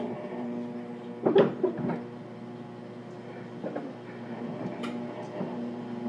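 Inside a JR Kyushu 415 series 1500 stainless-steel electric multiple-unit car: a steady hum from the car's equipment with a loud clunk about a second and a half in, then a few lighter knocks and sharp clicks.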